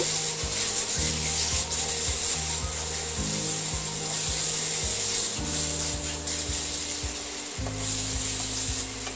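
A spatula scraping and stirring thick masala paste around a non-stick pan, over background music of held low notes that change about every second.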